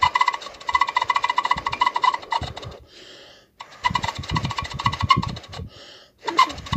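Rapid buzzing, crackling noise with a steady high tone running through it, in three stretches broken by short pauses about three seconds and six seconds in.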